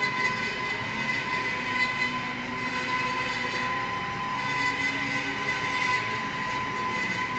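Steady whine of a metal-cutting bandsaw running a bi-metal blade through 4-inch steel bar, several high tones held level over a mechanical hiss. The carbide-tipped blade cutting the large steel round is near silent beneath it.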